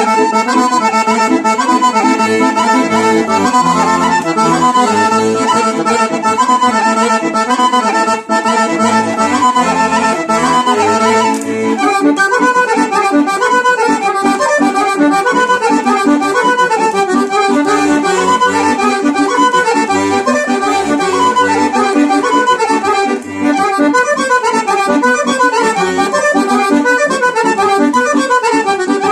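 Piano accordion and a small whistle-type fipple flute playing a fast Serbian Vlach kolo dance tune together in quick running notes. The tune moves into a new section with busier up-and-down runs about twelve seconds in.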